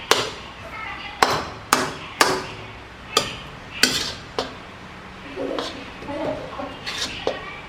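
Sharp knocks on a cutting board during kitchen prep, about seven strikes at uneven intervals, mostly in the first half.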